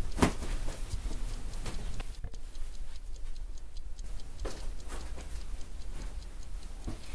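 Quiet, regular ticking in a small room, with one louder knock just at the start.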